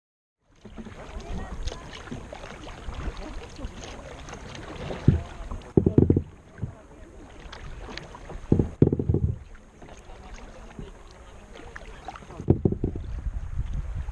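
Kayak on a river: water splashing and lapping around the hull with paddle splashes, and wind buffeting the microphone in three heavy low rumbles.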